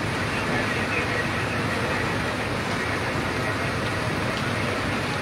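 Steady engine noise of a fire truck running close by, with a few voices faintly mixed in.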